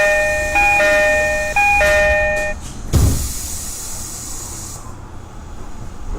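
Commuter train door-closing chime: a two-note high-low electronic chime repeating about once a second, then the doors shut with a thump about three seconds in. A hiss runs under it and stops near five seconds.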